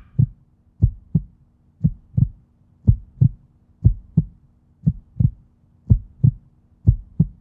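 Heartbeat sound effect: pairs of low thumps, lub-dub, about one pair a second, over a faint steady low hum.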